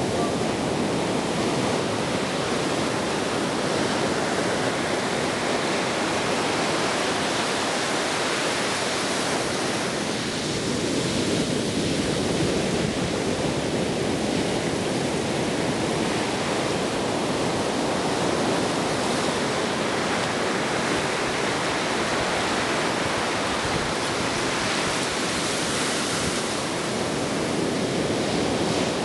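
Ocean surf on a beach: a steady rush of breaking and washing waves that slowly swells and eases.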